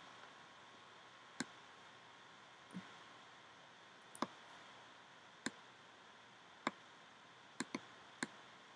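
Computer mouse button clicks: about eight short, sharp clicks a second or so apart, with a quick pair near the end, over a faint steady hiss.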